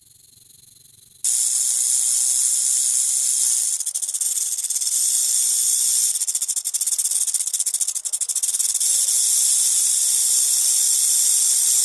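Snake hissing: a loud, high-pitched hiss that starts abruptly about a second in and holds steadily, wavering a little in the middle.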